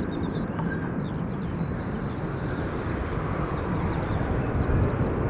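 Steady low jet roar of a McDonnell Douglas KC-10 Extender's three turbofan engines as the tanker rolls out after touchdown. Small birds chirp repeatedly close by throughout.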